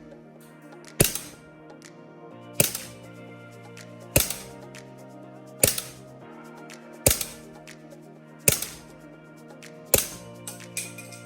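A Marushin M1 Garand gas-blowback airsoft rifle fired seven times at a slow, even pace, a sharp crack about every second and a half as the bolt cycles on gas. After the last shot, the empty en-bloc clip ejects with a couple of light metallic clinks, the M1's 'ping'. Background music plays throughout.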